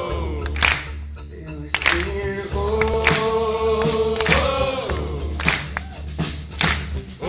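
Live acoustic rock song: many voices singing long held "oh" notes that glide between pitches, over a steady beat of sharp hits. The singing eases off for about a second, a second in, then comes back.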